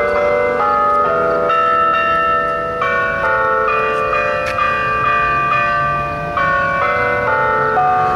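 Church bells rung in a quick run of strikes at several different pitches, each bell ringing on under the next.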